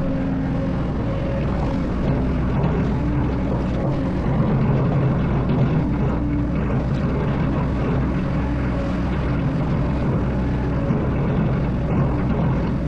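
Excavator's diesel engine running steadily under work, a continuous low drone with slight shifts in pitch.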